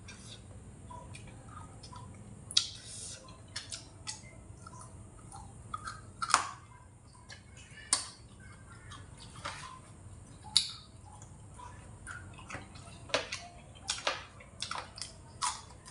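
Eating sounds: irregular sharp clicks and taps of chopsticks on a ceramic plate, with chewing, over a low steady hum.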